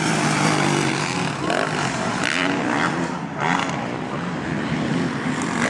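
Motocross bike engines racing on the track, revving up and down.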